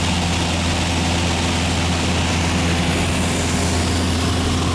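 Steady engine drone and rushing noise inside a small private plane's cabin in flight, even and unchanging throughout.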